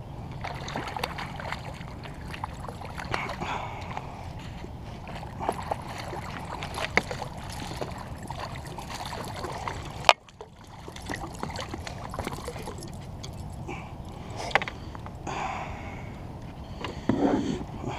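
A hooked striped bass splashing and thrashing at the water's surface beside a kayak as it is reeled in and grabbed. Scattered clicks and knocks throughout, with one sharp knock about ten seconds in.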